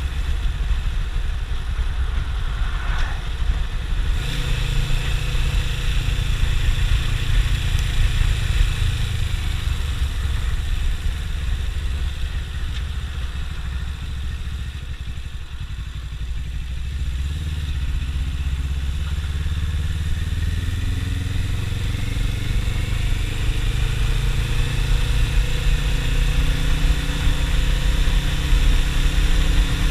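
Suzuki GS500E's air-cooled parallel-twin engine running under way. Its note drops and quietens around the middle, then rises steadily toward the end as the bike accelerates.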